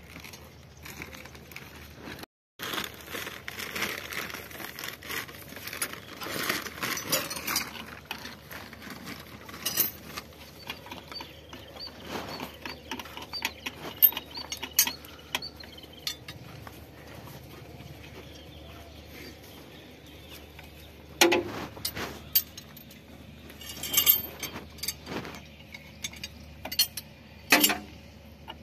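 Steel hydraulic fittings and hand tools clinking, scraping and clicking against a tractor's spool-valve block as parts are fitted by hand. The metal handling noises come irregularly, with a longer scraping stretch early on and a few sharper clinks later.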